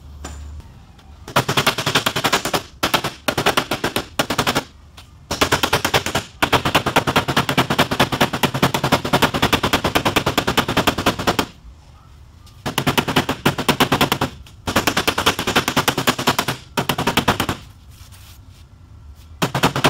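Body hammer rapidly tapping on the steel door panel of a Kia Soul, in fast runs of sharp metallic taps broken by short pauses: tapping down raised high spots to bring the dented body line back into shape.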